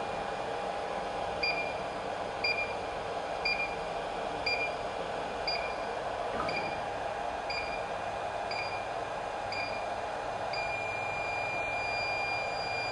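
BK200S hot-air rework station's blower running with a steady hiss while the station beeps about once a second, nine times, then gives one long beep of about three seconds near the end. The long beep marks the end of the heating cycle, when the nozzle lifts off the desoldered chip.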